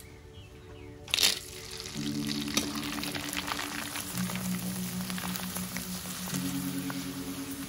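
Raw crackers (krupuk) frying in hot oil in an aluminium wok: a loud sizzling burst about a second in as they go in, then steady crackling and sizzling as they puff up, stirred with a metal spatula.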